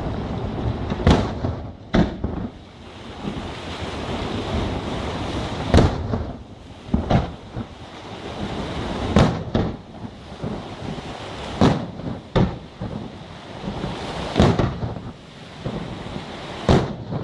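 Aerial firework shells bursting overhead: about ten sharp booms at uneven intervals, some in quick pairs, over a continuous rushing noise.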